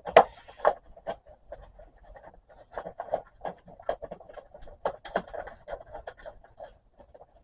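Irregular clicks, taps and scraping of hard plastic as the small caster wheels are worked off a vacuum cleaner's body, with a sharp knock right at the start.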